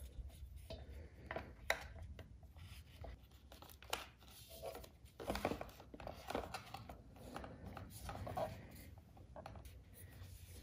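Faint rustling and rubbing of wires and a headlight being pushed back into its headlight shell on a Honda Monkey, with a few sharp clicks and knocks as it seats.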